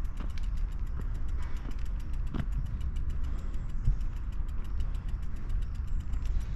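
Steady low rumble of wind and riding noise on the microphone during a bicycle ride, with a couple of faint knocks.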